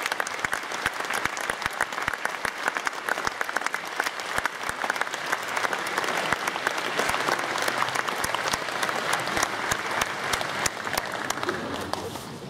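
Audience applauding, many hands clapping steadily; it thins out slightly near the end.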